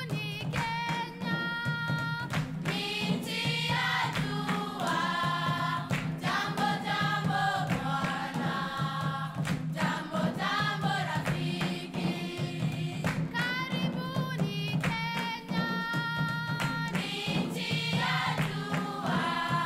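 Background music with a choir singing held, wavering notes over a steady low drone.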